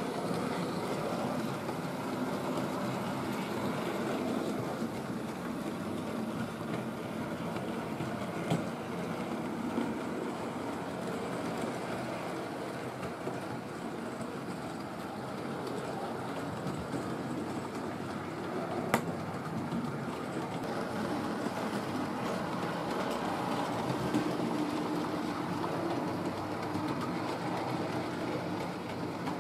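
OO gauge model train, a Hornby Lord Nelson class locomotive hauling a rake of wagons, running steadily on the layout's track: a continuous whirr and rumble of motor and wheels. A few sharp clicks come along the way.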